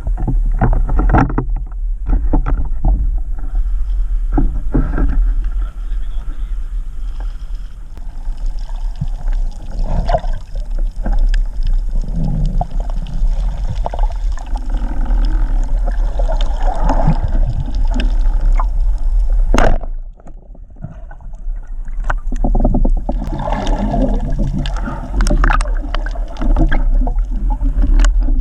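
Underwater sound from a camera on a spearfishing dive: water rushing and bubbling around the housing over a steady low rumble, with irregular knocks and one sharp click about two-thirds of the way through.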